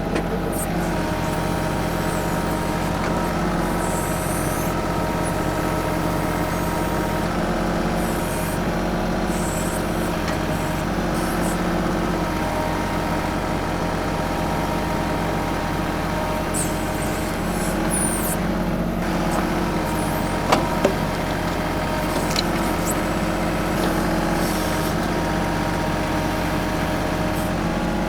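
TYM 2515H compact tractor's diesel engine running steadily while the BH150 backhoe digs out a tree stump. Two sharp clicks come about twenty seconds in.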